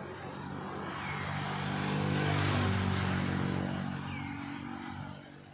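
A motor vehicle driving past, its engine and tyre noise swelling to a peak about two and a half seconds in and then fading away. A couple of short, faint high chirps sound over it.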